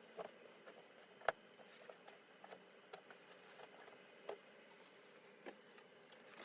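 Faint, scattered clicks and light knocks of parts and packaging being handled during unboxing, the loudest about a second in, over a quiet room.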